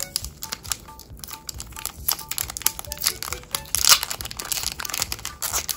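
Foil blind bag crinkling and crackling as fingers pick and pull at its stubborn seal, with a denser burst of crinkling about four seconds in. Soft background music plays underneath.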